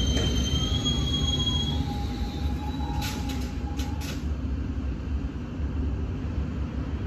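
London Underground S Stock Metropolitan line train rumbling alongside the platform with high-pitched wheel squeal for the first couple of seconds. A motor whine falls in pitch and holds until a few sharp clunks about three to four seconds in. The overall rumble slowly eases off as the train slows.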